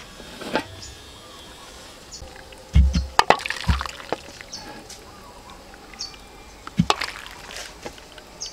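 Water sloshing and pouring as a bowl is dipped into a large aluminium pot of water. Sharp knocks of the bowl or lid against the pot come in a cluster about three seconds in and again near seven seconds.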